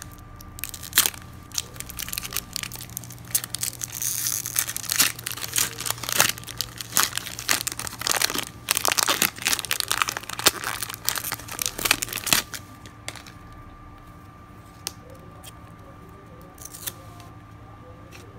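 Foil wrapper of a 1998 Bowman Chrome trading-card pack being torn open and crinkled, crackling for about twelve seconds. Then it goes quieter, with a few soft clicks as the stack of cards is handled.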